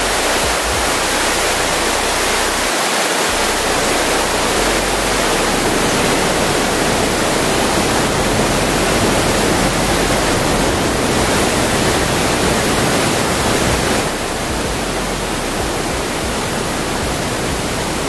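Waterfall close by, a steady rushing noise of falling water with no rhythm or tones in it, a little quieter from about fourteen seconds in.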